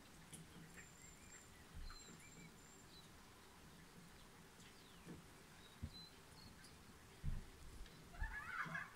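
Faint, thin high chirps of small birds, with a louder burst of calling near the end. There are a few low bumps from the handheld camera moving.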